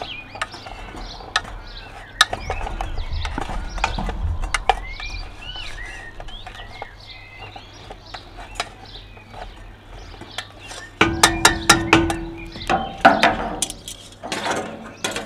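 Wooden spoon and metal tongs scraping and clinking against a spun steel camp oven as chopped vegetables are stirred, with a quick run of sharp metallic clicks about three-quarters of the way through. Birds chirp and road traffic rumbles low in the background.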